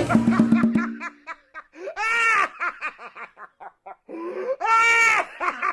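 High-pitched laughter: a run of quick, short laughing pulses, then two longer squealing laughs, about two seconds in and near the end.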